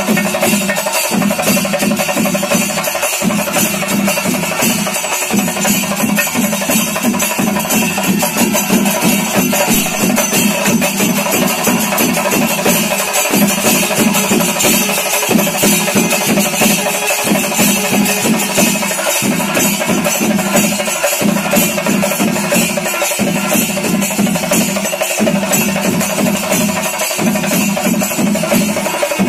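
Kerala temple-festival percussion: drums and clashing hand cymbals playing loudly in a steady rhythm, with a pattern that repeats about every two seconds.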